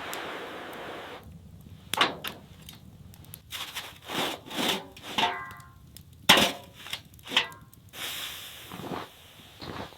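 Woody knocks and cracks, about five sharp strikes spread over several seconds, with a scraping hiss at the start and near the end.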